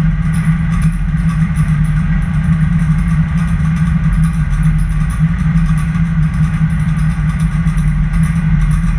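Steady vehicle engine and road noise, a low drone that holds even throughout.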